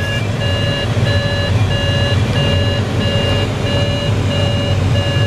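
Glider audio variometer beeping steadily at one pitch, about three beeps every two seconds. An interrupted vario tone like this signals that the glider is climbing in lift. Under it runs a steady low rush of airflow noise in the cockpit.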